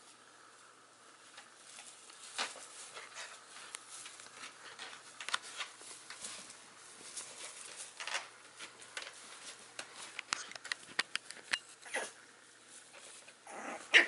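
Six-week-old puppies playing and tussling: scattered light scuffles and ticks with a few short puppy yips every few seconds, the loudest just before the end.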